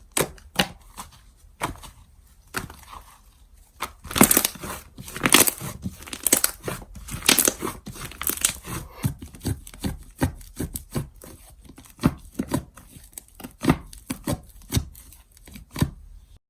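Slime being squished and pulled by hand, making a run of sharp, irregular pops and clicks, louder and denser in the middle stretch.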